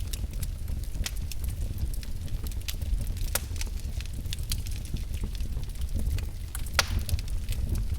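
Wood fire in a fireplace crackling: frequent irregular sharp pops over a low steady rumble of the flames, with one louder pop near the end.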